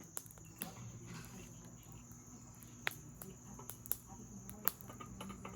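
Campfire crackling: wood snapping in a few sharp pops, the loudest about three seconds in and near the end, over a steady high-pitched drone.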